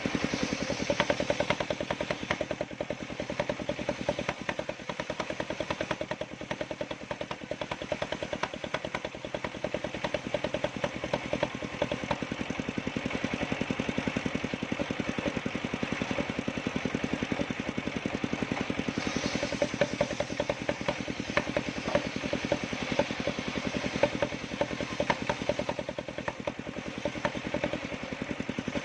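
Engine of a homemade circular-saw sawmill rig running steadily, with rapid regular firing pulses and some clatter.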